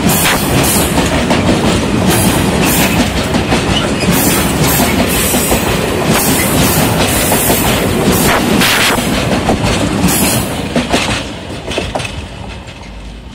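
Empty stake flat wagons of a freight train rolling past, wheels clicking over the rail joints with irregular clanks and screeches. About ten and a half seconds in the last wagon goes by and the sound drops away as the train pulls off.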